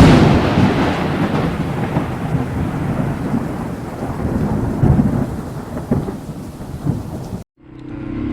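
A thunderclap: a sudden loud crack, then a long rolling rumble that slowly fades and is cut off abruptly near the end.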